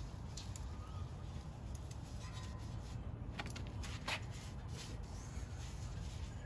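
Propane burner running steadily under a carbon-steel plow disc wok, a low rumble, with a few faint light clicks.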